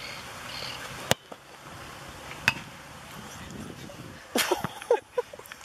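A football struck hard with a kick about a second in, then a second sharp knock about a second and a half later as the ball hits the crossbar. Short shouts of voices near the end.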